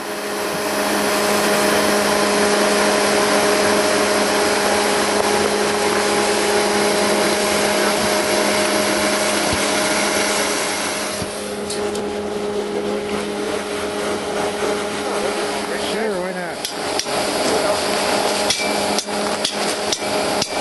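Snowmaking fan gun running: a steady rushing blast of air and spray over a steady motor hum. About eleven seconds in it drops somewhat, and near the end a run of sharp knocks comes in.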